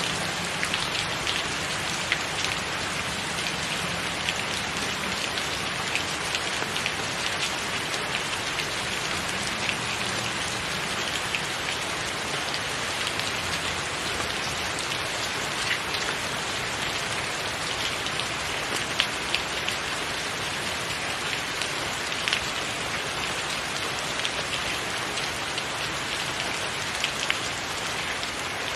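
Steady rain: an even hiss with many single drops ticking sharply above it.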